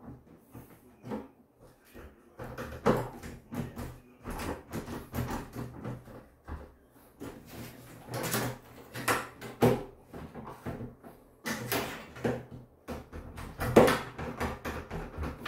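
Screwdriver and an old metal lever door handle being worked: irregular metallic clicks, scrapes and knocks as the handle, stuck fast with age, is twisted and pried, with a sharp knock about 14 seconds in.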